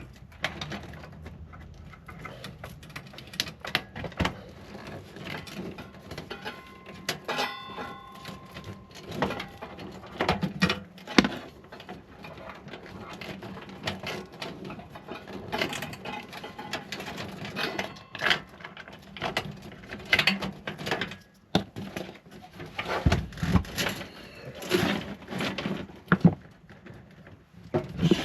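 Irregular clicks, clunks and rattles of computer-case parts being handled and pulled apart during a PC disassembly, with a short metallic ring about seven seconds in.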